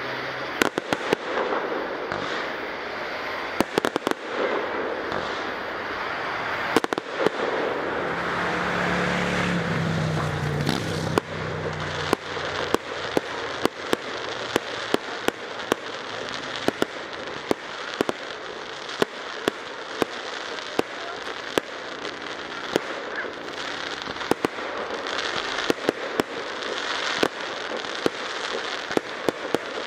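Aerial fireworks display: sharp bangs of bursting shells over continuous crackling, the bangs coming quickly one after another through the second half.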